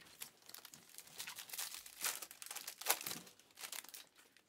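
Foil wrapper of a Prizm basketball card pack being torn open and crinkled: a quick, uneven run of crinkling and tearing noises that dies away near the end.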